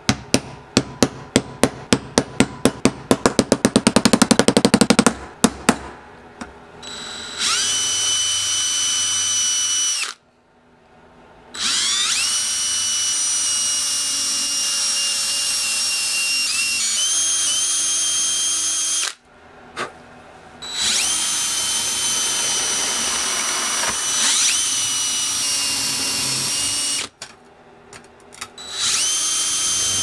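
Handheld power drill boring holes through thin sheet aluminum. It runs in four long bursts separated by short pauses, each spinning up with a rising whine. Before the drilling, a run of sharp taps comes faster and faster.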